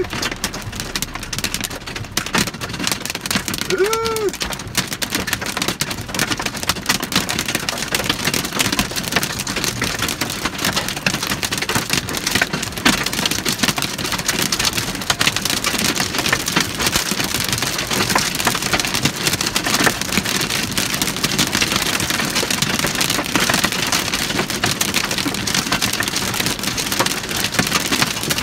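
Hail pelting the roof and windshield of a Kia Sportage, heard from inside the cabin: a dense, steady clatter of ice pellets striking the car body and glass, growing a little thicker in the second half.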